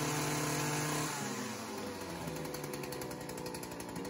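Stihl FS 56 RC string trimmer's two-stroke engine running on a newly replaced carburetor. It holds a steady speed, then drops back to a quieter, pulsing idle about a second in.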